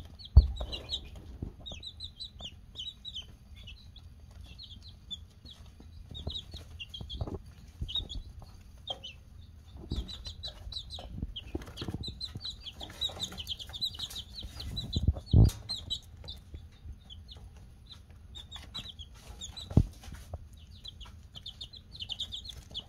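Baby Polish chicks peeping: many short, high chirps in quick runs, with a few dull knocks, the loudest just after the start and about two-thirds of the way through.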